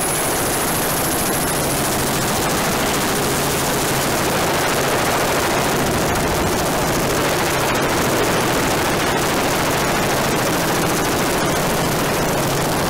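Camera helicopter heard from on board: a steady, loud rush of turbine and rotor noise with a low hum and a rapid pulsing beat from the blades.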